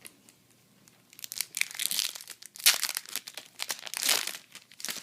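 Foil wrapper of a Yu-Gi-Oh booster pack crinkling and tearing as it is handled and ripped open: a dense run of sharp crackles starting about a second in.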